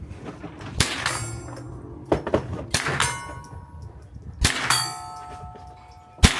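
About five sharp shots or impacts a second or so apart, with steel targets clanging and ringing on the hits. The ring is longest after the shots near the middle and about two thirds of the way through.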